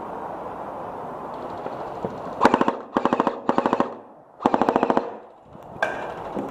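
Airsoft rifle firing on full auto in four short bursts of rapid clicking shots, close and loud, starting about two and a half seconds in.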